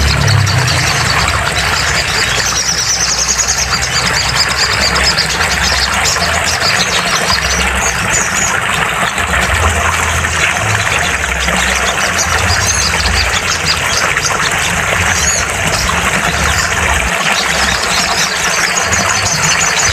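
Sogon (sunbird) song played for bird therapy: short, rapid, high-pitched trills recurring every few seconds over a dense, steady hiss and a low, uneven rumble.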